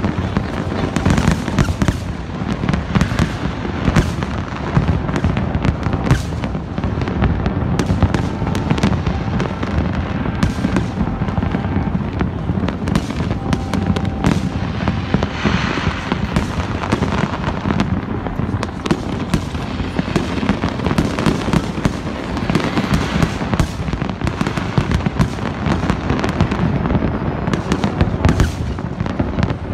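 Large fireworks display: a dense, unbroken barrage of bangs and crackles from many shells bursting at once.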